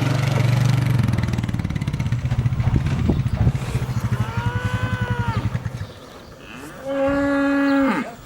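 Cattle mooing: a long, low moo runs through the first six seconds, overlapped by a higher moo that rises and falls about four seconds in, and another moo comes near the end.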